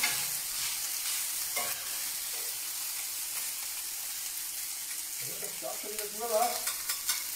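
Tender-wheat risotto sizzling on a hot, heavy enamelled plancha as metal spatulas stir and scrape it, with a steady hiss and a few clicks of the spatulas on the plate.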